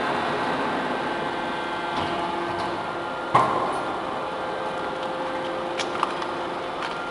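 Hydraulic double-ram metal baler running: a steady pump hum with several sharp metallic clanks. The loudest clank comes about three and a half seconds in and rings briefly.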